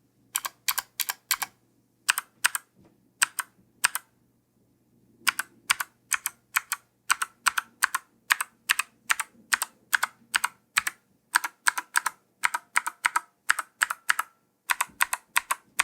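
Typing on a ZSA Moonlander split mechanical keyboard fitted with clicky Kailh Gold switches: quick runs of key clicks with short gaps, and a longer pause about four seconds in.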